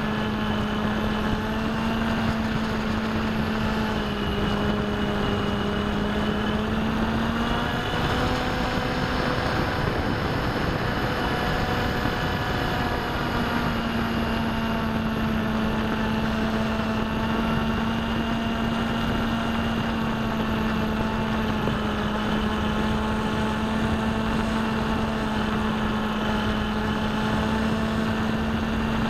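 Bixler v1.1 RC plane's electric motor and pusher propeller, heard from the camera on board the plane: a steady whine with wind rush. The pitch changes with the throttle about a third of the way in, then holds steady.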